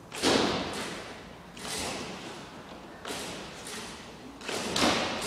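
Slackline webbing thumping under a rider's repeated bounces, each hit followed by a fading swish, about every one and a half seconds.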